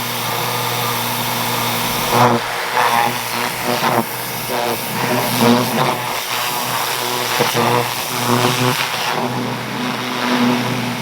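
Pressure washer running with a steady motor hum, its water jet hissing and splashing unevenly as it blasts caked grass off a mower deck.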